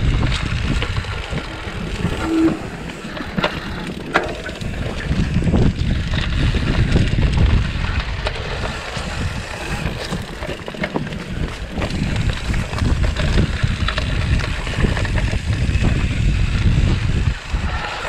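Mountain bike running fast down a rough dirt trail: continuous wind rumble on the microphone and tyres on dirt, with the frame and parts rattling and sharp knocks over bumps.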